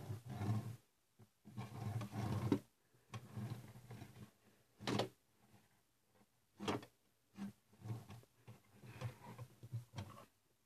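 A LEGO Technic crane trolley and its toothed-rack rails being handled on a wooden table: plastic parts rattling and clattering, with sharp knocks about five seconds in and again a couple of seconds later.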